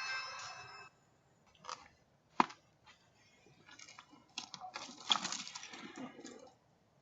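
The tail of a Ring video doorbell's chime fading out within the first second, then a few sharp clicks, the loudest about two and a half seconds in, and a couple of seconds of scuffling noise near the end.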